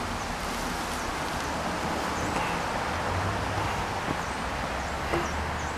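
Steady outdoor background hiss of rustling foliage, with a few faint, high bird chirps scattered through it.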